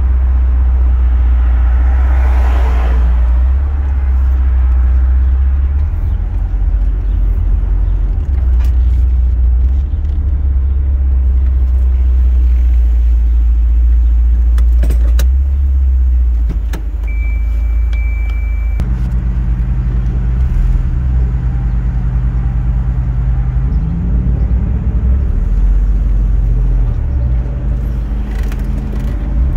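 Volvo 940 Turbo's turbocharged four-cylinder engine and road noise heard from inside the cabin, a loud steady low drone. A little past the middle a thin high beep holds for about two seconds. In the last few seconds the engine note rises and falls as the car moves off.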